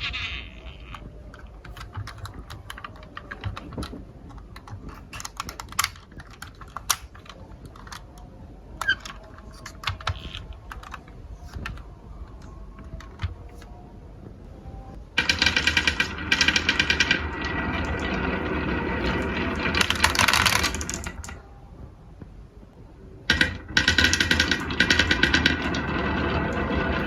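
Marbles clicking and rattling down a wooden marble run: scattered separate clicks at first, then about fifteen seconds in a dense clatter of many marbles rolling for several seconds, a short lull, and more clatter near the end.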